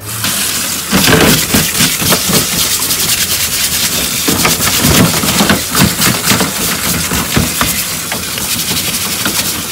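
Tap water running onto a stainless steel sink and tray while the underside of a large mud crab's shell is scrubbed by hand in quick rubbing strokes.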